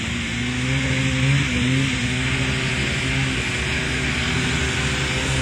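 Snowmobile engine running at low speed, a steady drone that wavers slightly in pitch about a second in.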